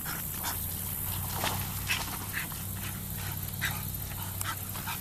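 Dogs giving short, scattered yips and barks over a steady low hum.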